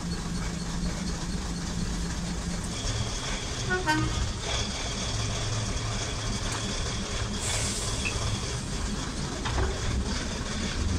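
Diesel train engine running, its note changing about three seconds in as the train moves off from the platform, with a steady high whine for several seconds and a short toot about four seconds in.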